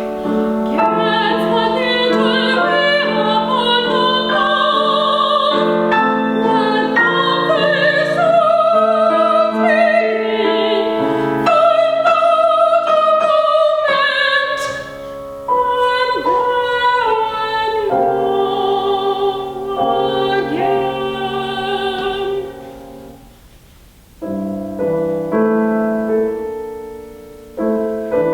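Soprano singing an art song with vibrato over piano accompaniment. Near the end the music drops away briefly, then piano chords resume.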